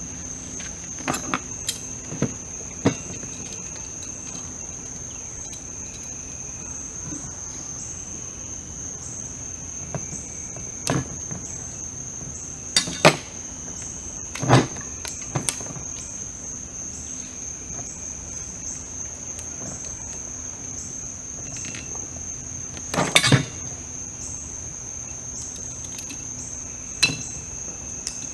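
Night insect chorus of crickets: a steady high-pitched trill that does not let up. Over it come scattered sharp clicks and knocks, the loudest a little before the middle and again late on, from a bottle and dishes being handled on the camp table.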